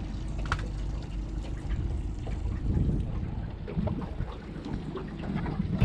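Water lapping and sloshing against a small boat's hull, with wind on the microphone: an irregular low rumble with faint ticks.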